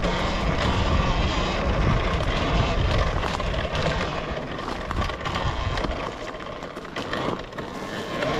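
Talaria Sting electric dirt bike ridden fast over a rough dirt trail: wind buffeting the microphone and the bike rattling and knocking over bumps. The low wind rumble eases about six seconds in.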